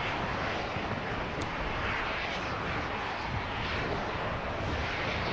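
Molten lava surging and spattering in an active lava lake: a steady rushing noise that swells and eases every second or so.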